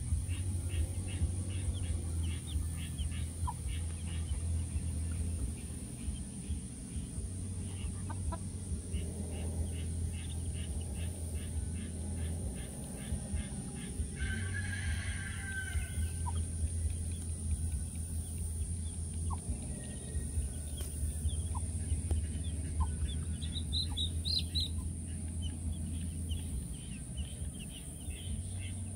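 Two-day-old chicks peeping in quick, high little calls, with a mother hen clucking among them, over a steady low hum.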